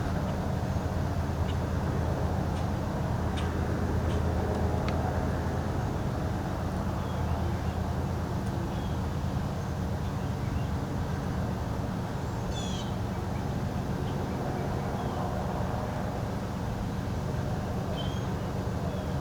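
Propeller light aircraft engine droning steadily, a little louder in the first few seconds and then easing off. A few light clicks sound early on, and a bird chirps briefly near the middle and again near the end.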